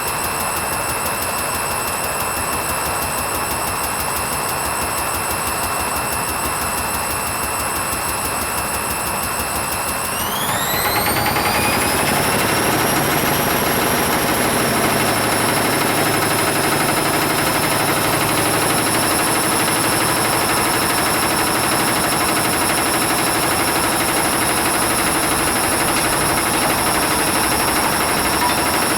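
Hoover Vision HVP16 washing machine spinning, its motor whining steadily; about ten seconds in the whine rises in pitch and gets louder as the drum speeds up, then holds steady at the higher speed.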